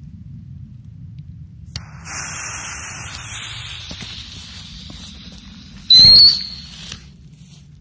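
Small whistling fireworks failing to go off properly: a hiss starts about two seconds in and fades, then about six seconds in comes a short, loud burst with a brief shrill whistle. Both whistlers are duds.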